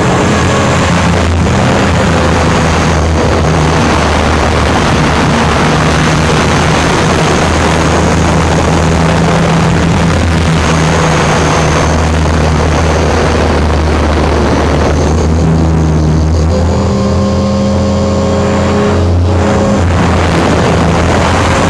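Onboard sound of a Trex 500 RC helicopter in flight: the rotor and motor make a steady droning hum under rushing wind. About two-thirds of the way through, the rushing eases and the hum changes pitch.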